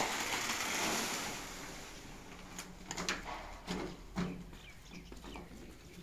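Wet concrete sliding out of a tipped steel wheelbarrow onto a crushed-brick base: a rushing scrape that fades away over the first two seconds. After it come scattered knocks and clatter as the empty barrow is handled.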